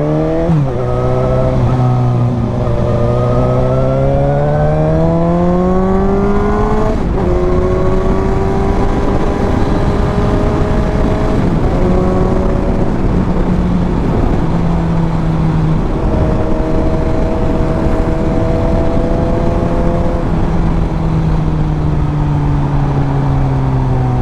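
Suzuki GSX-S750 inline-four motorcycle engine and exhaust under way, with wind rushing. The pitch climbs and drops sharply on an upshift under a second in, climbs again to another upshift about seven seconds in, then holds at a fairly steady cruise, easing slightly near the end.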